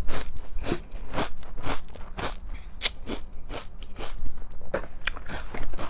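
A person chewing crunchy cereal with milk, close to the microphone: crisp, crackly crunches at about two a second.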